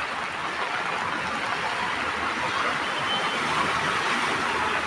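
A car driving through deep floodwater, its wheels throwing up a rushing splash of water that swells in the second half.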